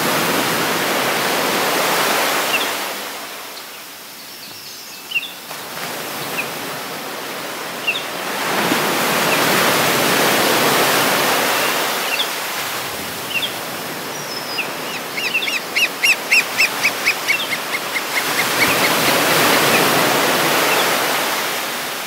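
Ocean surf breaking and washing ashore, the rush swelling and ebbing every few seconds. Birds chirp over it, with scattered single chirps and a quick run of chirps about two-thirds of the way through.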